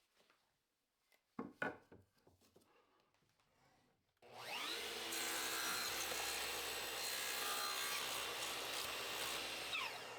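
A couple of sharp knocks, then an electric power tool working wood for about seven seconds, steady once it is cutting and starting to wind down near the end.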